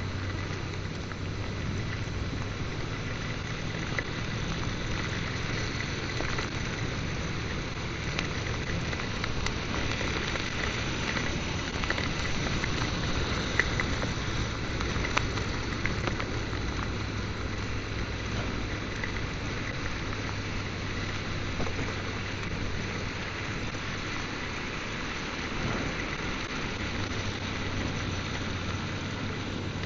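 Heavy rain falling steadily, heard while riding a motorcycle, with a steady low hum underneath.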